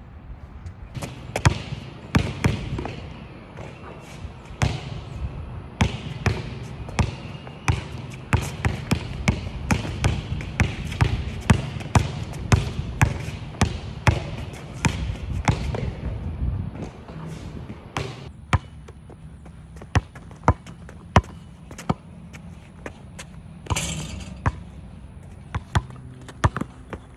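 A basketball dribbled hard on a hard outdoor court: sharp, irregular bounces, several a second in quick flurries including between-the-legs dribbles, growing sparser after about sixteen seconds, over a low steady rumble.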